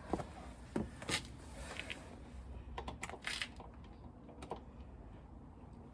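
Scattered small metallic clicks and a brief scrape of a Torx key being fitted to and worked against the wing mirror's mounting bolts, which are stuck and not turning.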